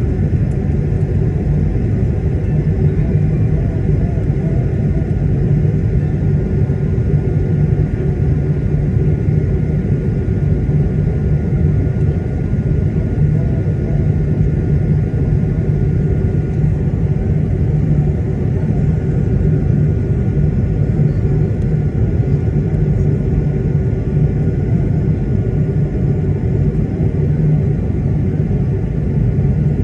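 Steady engine rumble of an Airbus A220-300's Pratt & Whitney PW1500G geared turbofans as heard on board during the flight after takeoff, with a faint steady whine over the low roar.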